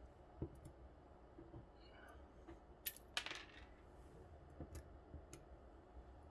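Light, scattered metallic clicks and taps of small lock pins, springs and parts being handled on a hard surface as a lock cylinder is taken apart. The sharpest click comes about three seconds in, with a smaller one just after it.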